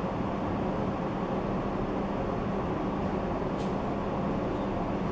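A steady background hum and rush of room noise, with a low drone throughout, and a faint tick about three and a half seconds in.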